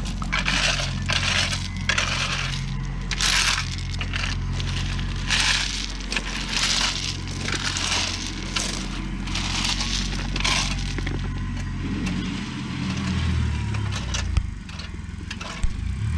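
Tractor engine running steadily while its loader bucket crunches and scrapes through rock and gravel in repeated gritty bursts over the first ten seconds or so. The engine note shifts after that.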